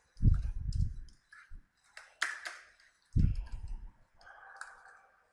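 Computer keyboard keystrokes and clicks while a line of HTML is typed and pasted, with two dull low bumps, the louder near the start and another about three seconds in.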